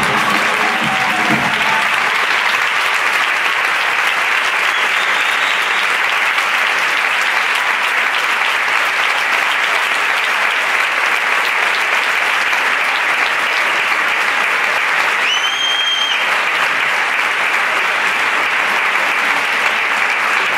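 Large theatre audience applauding steadily, with one short high whistle about fifteen seconds in.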